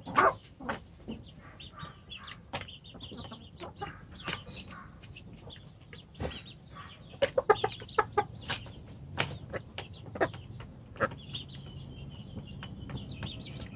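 Rhode Island Red hens clucking, with many sharp taps and knocks between the calls, thickest around the middle.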